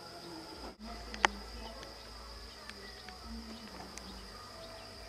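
Steady high-pitched insect drone in a garden, with a few faint clicks and one sharp tick about a second in.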